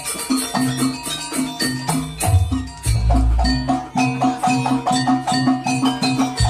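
Live jaranan dance music: a gamelan-style ensemble with metallophones struck in a quick, even run of repeated notes, about four a second, and deep low booms about two and three seconds in.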